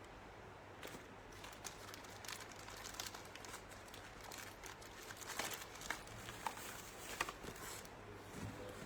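Packaging being handled: faint crinkling and rustling with scattered small clicks and taps, busiest past the middle.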